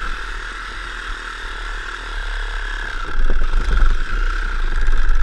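Reciprocating saw running with a steady whine as its blade cuts through the base of a white-tailed buck's antler, growing louder about three seconds in.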